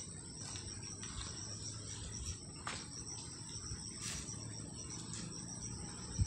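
Steady, high-pitched drone of insects chirring in the grass and trees, with a few faint taps or rustles.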